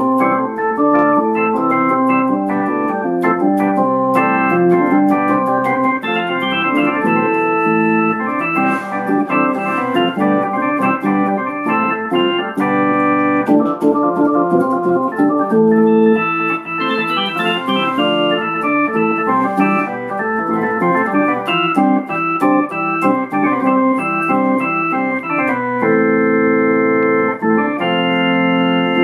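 Yamaha portable keyboard played in an improvised way with an organ-like voice: held chords that change every second or so, with a melody over them.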